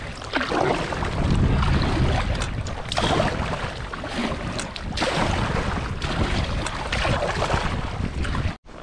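Kayak paddle strokes splashing through choppy sea water, with wind rumbling on the microphone. The sound cuts off abruptly near the end.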